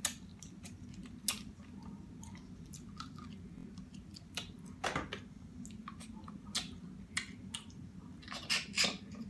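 A person chewing and eating seafood close to the microphone, with about a dozen sharp clicks and cracks scattered through, over a steady low hum.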